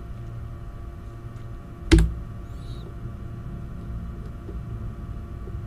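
A single sharp click of a computer keyboard key being pressed, about two seconds in, over a steady low hum.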